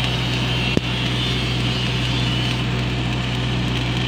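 Engine-driven Miller welding generator running with a steady drone, under the crackle of a stick-welding arc. A single sharp click a little under a second in.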